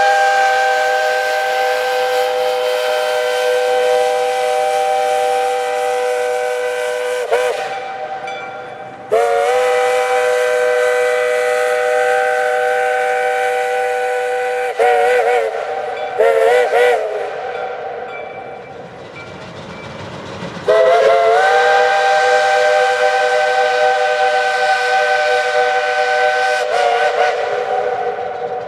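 Steam locomotive's chime whistle blowing a chord of several steady tones, each blast opening with a quick upward slur. Three long blasts of several seconds are broken by a few short toots, and the chord shifts lower near the end of the last blast.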